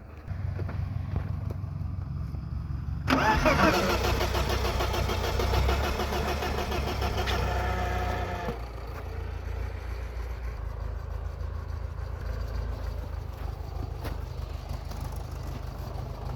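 A 1995 BMW E34's starter cranking the engine for about five seconds, beginning about three seconds in with a rising whine, over a steady low engine rumble that runs throughout.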